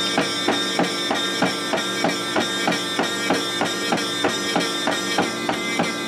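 Okidata Pacemark 3410 9-pin dot matrix printer printing banner graphics in three-pass mode. The print head gives a steady pitched buzz, with a regular sharp clack about three times a second.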